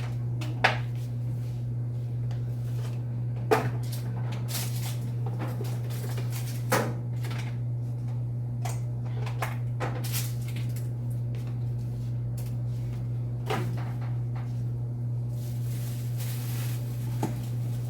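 Scattered knocks and clicks, about five spread out, from a new microwave oven being handled and set in place, its door and panels knocking; a steady low hum runs underneath.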